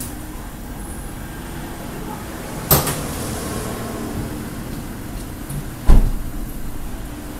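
A sedan's driver door slamming shut with a heavy thump near the end, after a sharp click about three seconds earlier, over a steady low hum.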